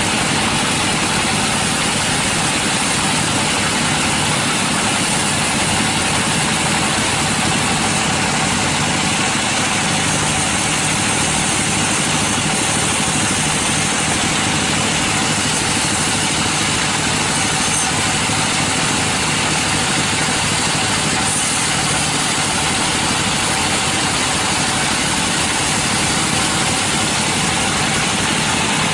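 Sawmill machinery running steadily: a loud, unbroken mechanical noise that holds the same level throughout.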